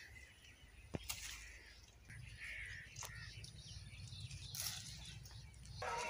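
Faint outdoor ambience: scattered bird chirps over a low wind rumble on the microphone, with a few sharp clicks and leaf rustles from hands picking in a ridge gourd vine.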